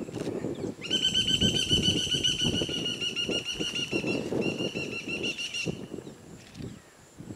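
A wild Asian elephant herd moving through grass and scrub: irregular rustling and soft thuds. Over it a high-pitched, fast-trilling call starts about a second in and lasts about five seconds, with a brief break just past the middle.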